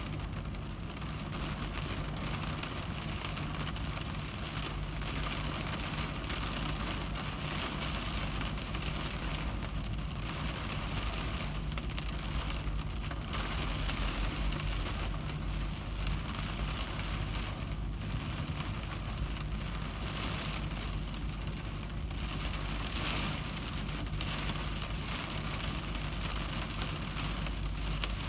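Heavy rain pattering on a car windshield, a dense steady patter of drops with a low steady hum underneath.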